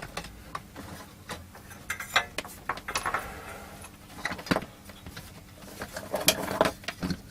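Irregular light clicks, taps and small rattles of hard objects being handled and set down, over a faint steady hum.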